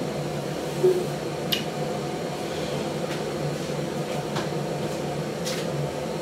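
A steady mechanical hum, with a few faint clicks and handling noises over it.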